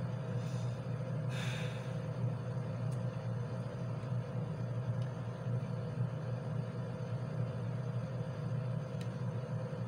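Steady low hum of room tone, with two soft breaths about a second in; the music plays only inside the headphones and is not heard.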